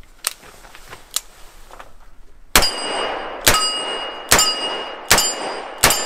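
Smith & Wesson Model 625 JM revolver in .45 ACP being fired: five shots in quick succession, about one every 0.8 seconds, starting a little before halfway. Each shot is followed by a brief metallic ring. Before the shots come two light clicks.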